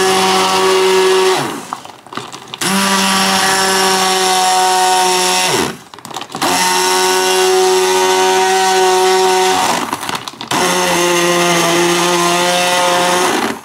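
Silvercrest hand blender running in a beaker of milk, fruit and ice, switched on and off in short runs of about three seconds, the motor winding down in pitch at each of three brief stops.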